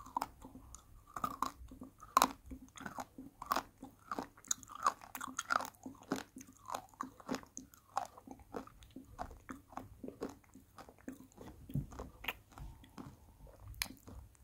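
Close-up chewing of a hard candy-shelled sweet: irregular sharp crunches, several a second, the loudest about two seconds in, growing sparser towards the end.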